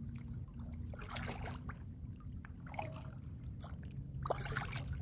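Kayak paddle dipping into the water, two splashy strokes about three seconds apart, with a low steady rumble underneath.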